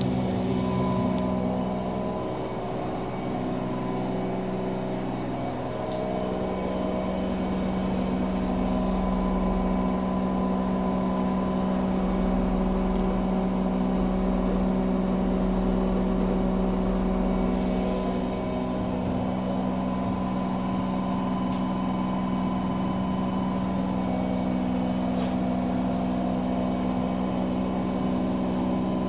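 LG 10 kg front-loading washing machine running, its motor giving a steady hum and whine of several held tones: the noise the owner takes for a motor problem. The pitch shifts slightly a few seconds in, and a low rumble rises under it through the middle.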